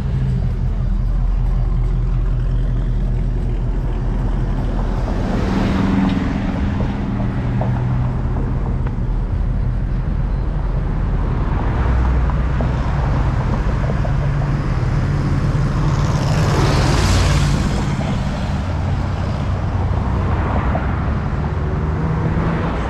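Cadillac CTS-V coupe's supercharged 6.2-litre V8 running at low speed, a steady low rumble, with street traffic rushing past, loudest about 17 seconds in.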